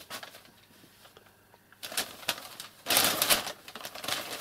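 Sheets of paper rustling and crinkling as a kitten pounces and scrabbles on them: a couple of short crackles about two seconds in, then a louder burst of crinkling about three seconds in.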